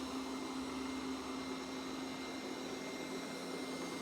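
Roborock Qrevo S robot vacuum running, a steady whir with a constant low hum under it.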